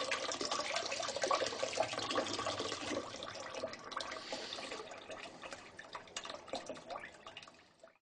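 Water from a kitchen tap running and splashing over a coated fishing lead held in pliers above a stainless steel sink, quenching the lead after curing in the oven. It fades away near the end.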